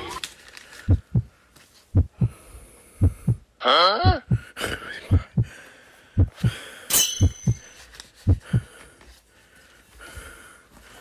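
Heartbeat sound effect: paired low thumps about once a second that stop about nine seconds in. A rising glide sounds about four seconds in, and a brief bright chime about seven seconds in.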